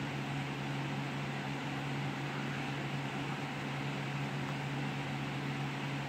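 A steady low hum with an even hiss of background noise; no music or singing is heard.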